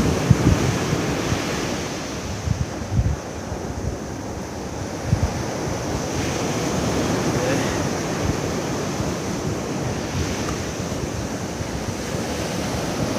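Ocean surf washing onto a beach, a steady rushing noise, with wind buffeting the microphone in a few low thumps during the first few seconds.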